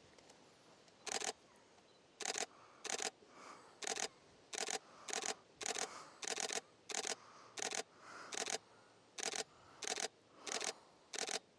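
Canon 90D DSLR shutter firing about fifteen times in quick succession, one single frame every half second to second. The spacing is slightly uneven, as the shutter is pressed repeatedly while photographing a barn owl.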